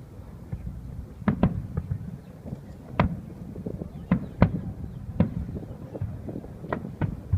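Fireworks going off: a string of sharp bangs at irregular intervals, about nine in all, the loudest about four and a half seconds in, over a steady low rumble.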